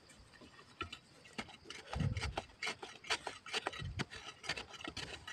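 Knife blade scraping and chipping at hard, dry soil in a quick, irregular run of short rasping scrapes, with a couple of duller thuds about two and four seconds in.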